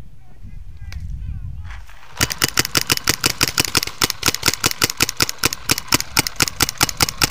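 Low wind rumble on the microphone, then, about two seconds in, a paintball marker starts firing a rapid, steady string of shots, about nine a second, that keeps going.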